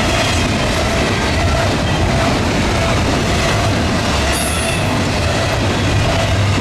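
Norfolk Southern intermodal freight train's container well cars rolling past: a loud, steady rumble of steel wheels on rail with a faint high wheel squeal over it.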